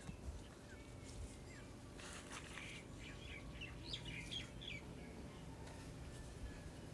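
Faint bird chirps, a handful of short high calls in the middle, over a quiet low background hum.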